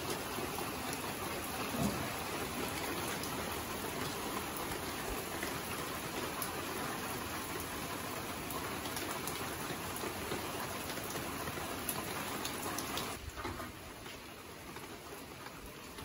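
Rain falling steadily, a dense hiss of drops with scattered sharp ticks of single drops; it gets quieter about thirteen seconds in.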